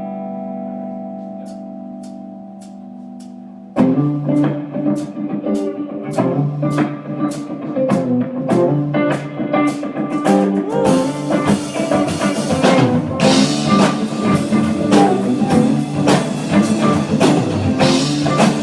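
Rock band playing live: a held chord fades over light, evenly spaced ticks, then about four seconds in the full band comes in loudly with drum kit, bass and electric guitar. The cymbals get brighter from about eleven seconds in.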